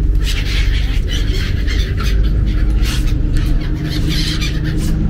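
Gulls calling repeatedly in short squealing cries over a steady low rumble.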